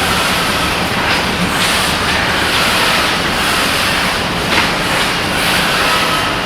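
Steady, loud machinery noise with a hiss and no clear rhythm.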